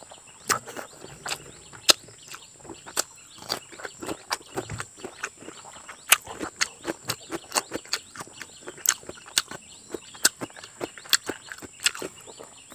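Close-up eating sounds from a person chewing a mouthful of rice and crab curry eaten by hand: wet lip smacks and chewing clicks, sharp and irregular, about two or three a second.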